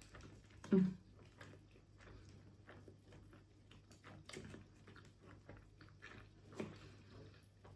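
Faint clicks, taps and soft squishes of fingers and wooden chopsticks moving steamed dumplings around a plastic takeaway tray, with a brief low hum about a second in.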